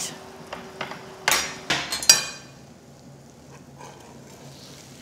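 A metal baking tray being set down on the cooktop and handled: a few light knocks, then a loud metallic clatter about a second and a half in, and a sharp clank that rings briefly at about two seconds.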